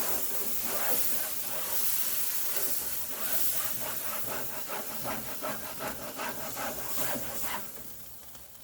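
A Nexgrill grill steamer brush, its sponge head soaked in cold water, scrubbed back and forth over hot grill grates. The water flashes to steam with a loud hiss, crossed by quick repeated rubbing strokes, and the hiss dies away near the end.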